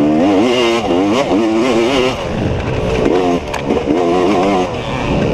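Off-road motorcycle engine revving up and down over and over as the throttle is opened and rolled off under racing load, with brief drops in loudness about two and four and a half seconds in.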